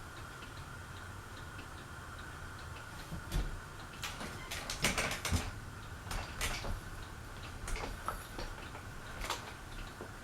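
Encon ceiling fan running on low speed with a steady faint hum. From about three seconds in come irregular clicks and light knocks, some in quick clusters.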